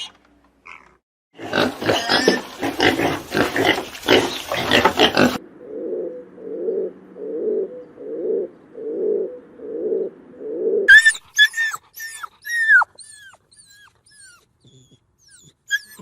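Animal calls in quick succession: a dense, loud run of harsh calls, then a series of low, rhythmic grunts about one and a half a second, then a string of short, high, falling chirps.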